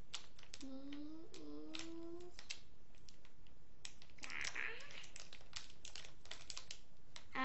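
A mystery-bag wrapper crinkling and clicking as it is handled and opened. A child hums briefly, with a slightly rising pitch, about a second in.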